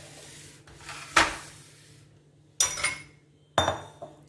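Kitchenware handled on a stone countertop: three knocks and clatters, the loudest a little over a second in, as the tray of ingredient bowls is moved aside and a glass mixing bowl is set down. The last knock has a brief glassy ring.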